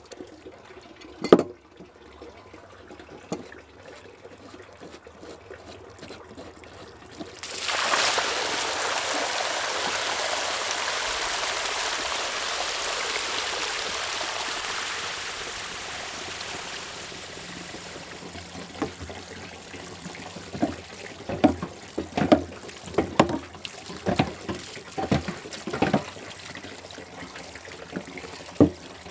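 A sharp knock just over a second in. Then water gushes out of the bottom drain of a plastic barrel tank and splashes onto the ground: it starts suddenly, runs steadily for several seconds, then eases to a thinner stream with irregular splashing as the tank is drained to flush out leaves.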